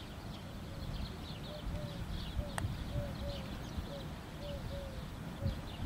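Birds chirping, with a string of short, lower-pitched calls repeating every half second or so, over a low rumble. A single sharp click about two and a half seconds in.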